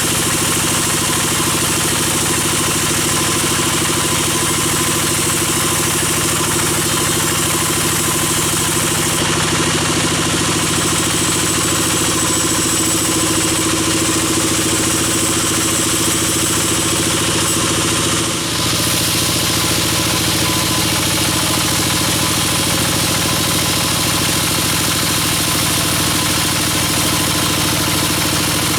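Band sawmill machinery running steadily with a constant engine-like drone, broken by a brief dip about two-thirds of the way through.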